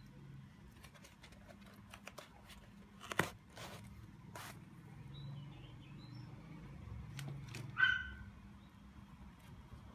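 Hands handling a knit sneaker and its tissue paper and pulling out the insole: soft rustling with a few sharp clicks, a strong one about three seconds in. Near the end comes a brief high call, the loudest sound, over a faint low hum.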